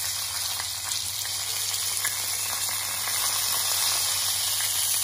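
Freshly washed, wet rice sizzling in hot olive oil with toasted orzo in a pan: a steady hiss with a few faint ticks.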